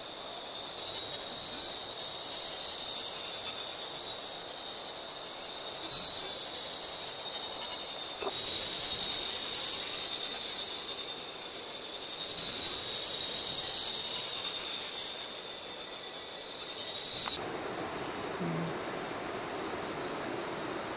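Tropical forest insects droning in a steady high-pitched chorus that swells and fades. About seventeen seconds in it switches abruptly to a different, slightly lower-pitched chorus.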